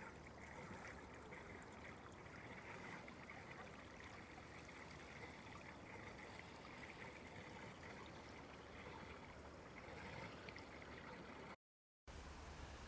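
Faint, steady trickling of running water.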